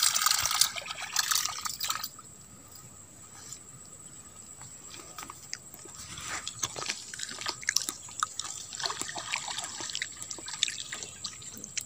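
Water sloshing and trickling, loudest for about the first two seconds, then fainter with scattered small clicks and rustles.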